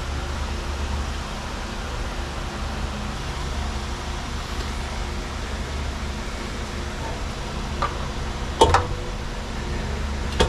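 Steady low background hum in a workshop, broken about eight and a half seconds in by a sharp metal knock, with a fainter one just before it, as an aluminum intake manifold is handled and set down onto a Pontiac V8 block.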